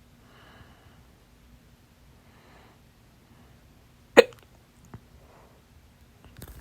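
A single loud, sharp hiccup from a woman a little past halfway, one of a stubborn half-hour bout of hiccups.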